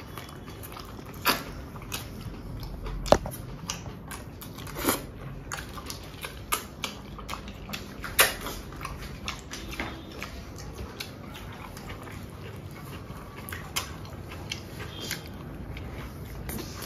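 Eating sounds of someone biting into and chewing a burger, with many scattered sharp clicks and crinkles; the loudest come about three and eight seconds in.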